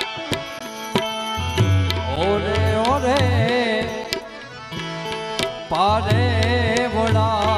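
Instrumental interlude of Gujarati folk music. Hand drums keep a rhythm of sharp strokes with bending bass notes, under a melodic lead whose notes waver and slide. The lead comes in two phrases, one about two seconds in and another near six seconds.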